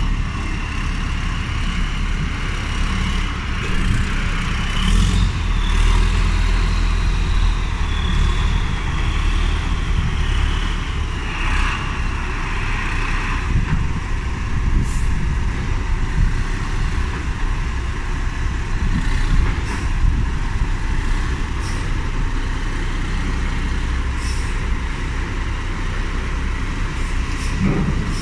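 Large four-wheel-drive tractor's Weichai diesel engine running steadily under load as the tractor climbs a ramp, with a high whine that rises about 4 seconds in and falls away around 12 seconds in. A few short knocks sound through it.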